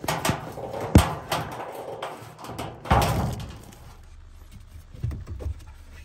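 Knocks and clatter from parts being handled: several sharp knocks, the loudest about a second in, a longer scraping clatter about three seconds in, and two lighter knocks about five seconds in.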